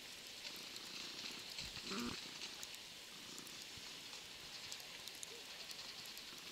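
Faint, steady hiss of precipitation with scattered light ticks from drops landing on the camera, and one short, louder pitched sound about two seconds in.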